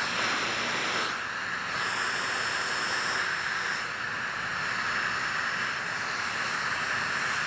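Electric heat gun running steadily, its blower giving an even hiss with a faint high whine, as it warms vinyl wrap film.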